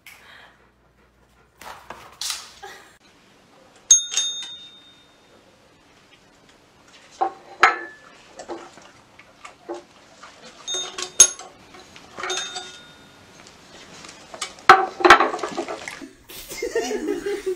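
Desk service bell struck by a dog, several bright dings a few seconds apart, each ringing out briefly, with short knocks and clatter in between.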